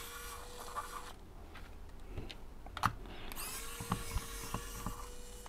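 Kaiweets ES20 cordless electric screwdriver running in reverse to back out small screws from a plastic device case. It makes a steady whir for about a second, pauses with a couple of small clicks, then runs again from about three seconds in.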